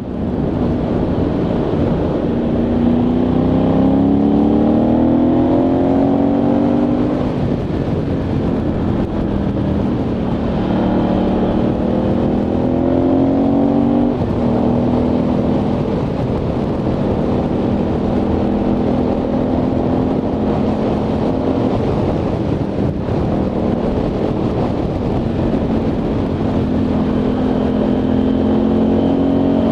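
Ducati Multistrada 1100S's air-cooled L-twin engine under way, with wind noise. The engine note climbs in pitch as the bike accelerates, drops back, and climbs again. It runs steadier in the middle and rises once more near the end.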